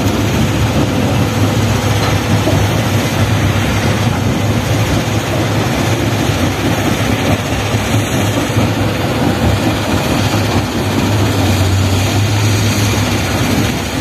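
Heavy diesel engines of a backhoe loader and a dump truck running steadily, with a low hum throughout.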